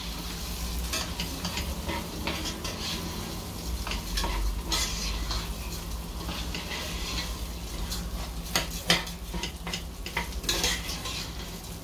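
Metal spoon stirring and scraping raw rice through fried bacon and sausage in a stainless steel pot, the fat sizzling as the rice is sautéed. The spoon clinks against the pot several times, most often near the end, over a steady low hum.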